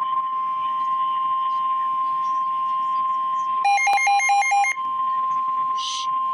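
NOAA Weather Radio alert tone: a loud, steady single tone near 1 kHz, the 1050 Hz warning alarm that signals a severe weather warning is about to be read. For about a second near the middle, a rapid pattern of alternating higher beeps sounds over the tone.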